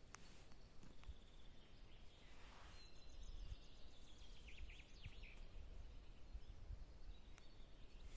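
Faint pine-forest ambience: a steady low rumble, with a small bird giving a quick run of short chirps about halfway through.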